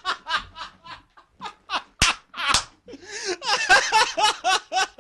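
A man laughing hard, in rapid breathy bursts of about four a second.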